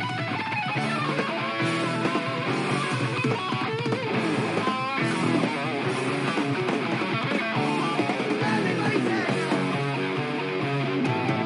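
Live heavy metal band playing, with an electric guitar lead of quick notes over bass and drums.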